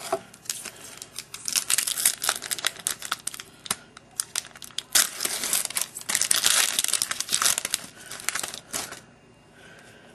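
Plastic wrapper of a baseball card pack being torn open and crinkled by hand: a dense run of crackles and rustles that stops about nine seconds in.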